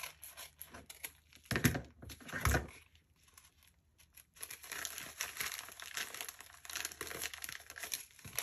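Scissors snipping into a small plastic packet, then two heavier knocks about a second and a half and two and a half seconds in, followed by the plastic packaging crinkling and rustling steadily as it is worked open by hand.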